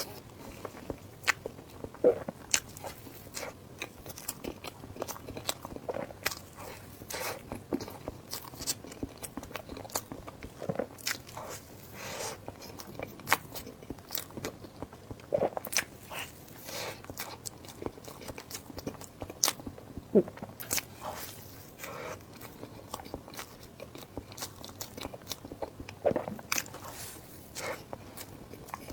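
Close-up eating sounds: a person biting and chewing food, with many irregular sharp crunches and wet clicks.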